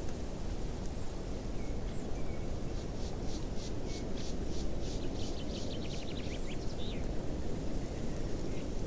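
Steady outdoor background rumble. Over it, a small bird calls in a run of short high notes, about three a second, ending in a quick trill.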